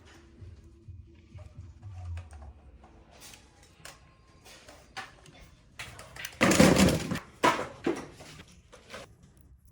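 Hard plastic action-figure parts clicking and tapping as the toy is handled, with a louder rustling scrape about six and a half seconds in.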